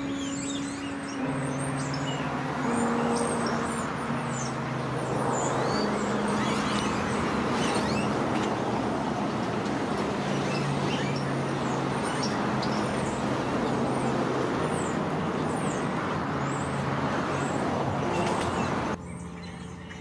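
Slow background music of held low notes over a steady rush of road traffic, with many short high bird chirps sounding throughout.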